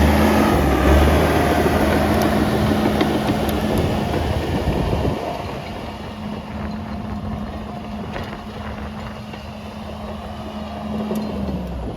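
John Deere 650J crawler dozer's diesel engine running under load, loud for the first five seconds, then easing to a lower steady running sound that tails off near the end.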